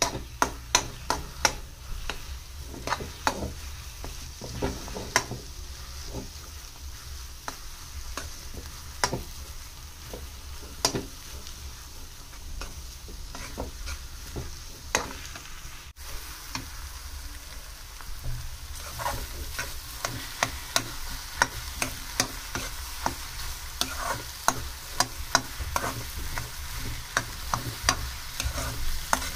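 Metal spatula scraping and knocking against a frying pan as scrambled egg bhujiya is stirred, with many irregular sharp clicks over a steady sizzle.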